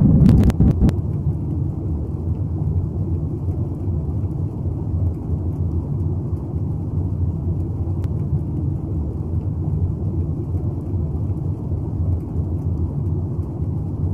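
Steady low rumbling drone of a sci-fi spaceship-interior ambience, a little louder in the first second, with a few sharp clicks at the very start.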